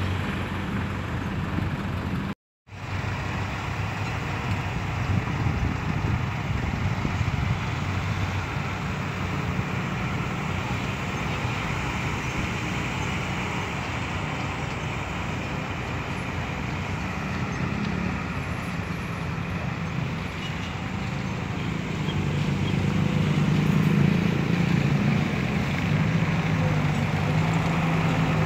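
Diesel engines of loaded dump trucks running as they drive along a dirt road, a steady hum that grows louder over the last few seconds as a truck comes closer. The sound breaks off completely for a moment about two and a half seconds in.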